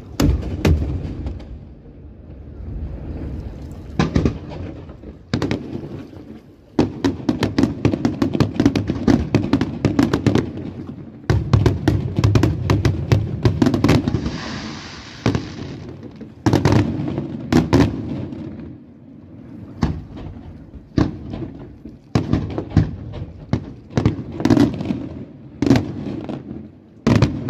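Aerial firework shells from a Colangelo Fireworks display bursting in quick succession. Heavy booms mix with long stretches of dense, rapid crackling, and a hissing rush comes about halfway through.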